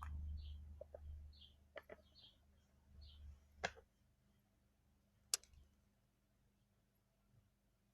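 Faint handling noises: low bumps in the first second or so and again around three seconds in, and a few sharp clicks or taps, the loudest about five seconds in. Faint short high chirps repeat about once a second through the first half.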